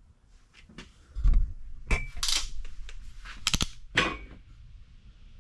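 Handling noise: a low bump about a second in, then several sharp metallic clicks and clacks over the next three seconds as the camera is picked up and moved.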